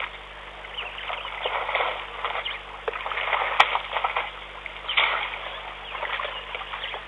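Water and mud splashing and sloshing in irregular bursts as African elephants wade and wallow in a muddy waterhole, with one sharp click about three and a half seconds in.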